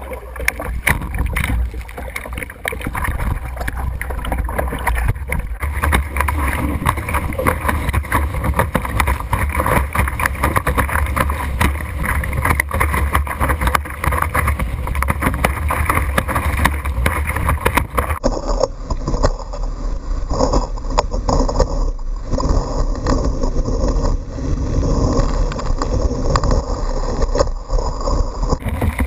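Water rushing and splashing against a kiteboard as it planes across choppy sea, with wind buffeting the action camera's microphone.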